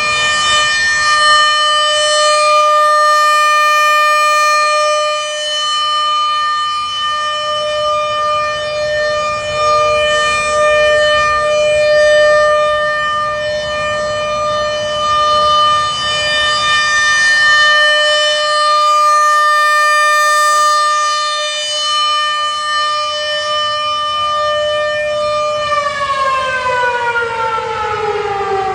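A.C.A. PN-20 outdoor warning siren sounding its steady Alert tone, swelling and fading in loudness. Near the end its pitch starts to fall steadily as the siren winds down.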